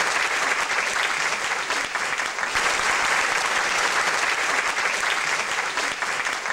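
Audience applauding steadily, a dense continuous clatter of many hands clapping.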